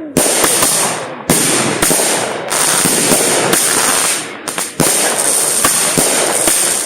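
Consumer aerial fireworks going off in quick succession: sharp bangs roughly every half-second to second, each followed by a dense crackling sizzle of the bursting stars.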